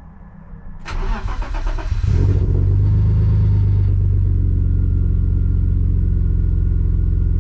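BMW E34's M50 straight-six cranked on the starter for about a second, then catching and settling into a steady fast idle. It starts promptly on the key, no longer failing to start.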